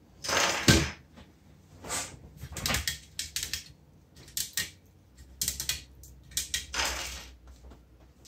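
A series of sharp clicks and short plastic rattles from small plastic parts being worked loose from a GM instrument cluster circuit board by hand and set down on a silicone mat.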